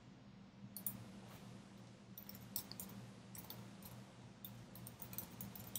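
Faint, irregular clicks of typing on a computer keyboard, several a second, over a low steady electrical hum.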